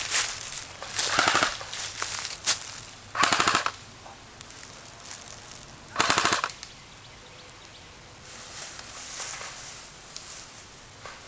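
Airsoft guns firing in short fully automatic bursts: three bursts of about half a second each, around one, three and six seconds in, with a few single shots between them.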